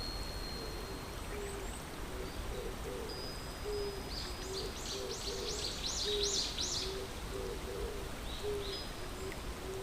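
Wild birdsong over a steady background hiss: short low hooting notes repeated over and over, thin high whistles, and a quick run of about eight arching chirps near the middle.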